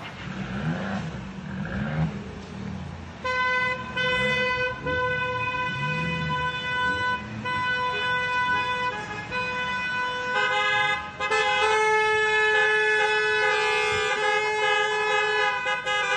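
Car horns honking in long, held blasts from about three seconds in. A second horn joins about ten seconds in, so that several horn tones sound together.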